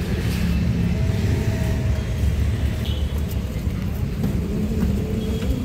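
Steady low rumble of road traffic, with a few faint clicks over it.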